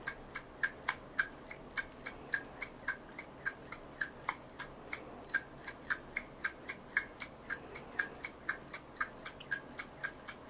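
Two syringes joined by a three-way connector being pushed back and forth to blend calcium hydroxylapatite filler with hyaluronic acid, giving a short click about three times a second.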